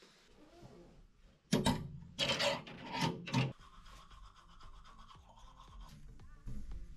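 A toothbrush scrubbing teeth in a run of short rasping strokes, then faint background music comes in about halfway through.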